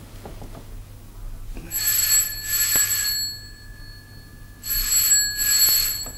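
Bedside dial telephone ringing: two double rings about three seconds apart, each burst lasting about a second and a half.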